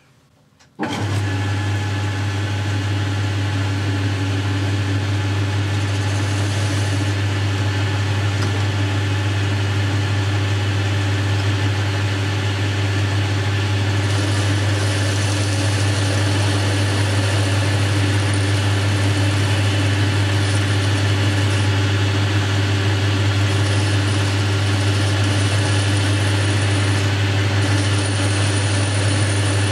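Boxford lathe switched on about a second in, its motor and drive then running steadily with a strong low hum while the tool faces off the end of the brass-held thumb screw. A high hiss comes and goes over the hum.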